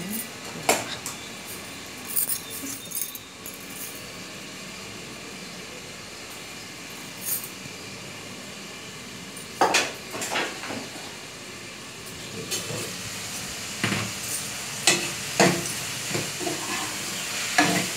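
Chopped tomatoes, onions and carrot sizzling in a covered aluminium pan on a gas burner, a steady soft hiss. Sharp metal clinks and knocks from the lid and a slotted spatula against the pan come through, louder and more frequent in the second half as the vegetables are stirred.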